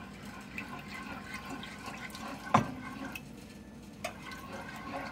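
A wooden spoon stirring milk into a butter-and-flour roux in a nonstick pot, a soft liquid stirring sound with small clicks, and one sharp knock about two and a half seconds in.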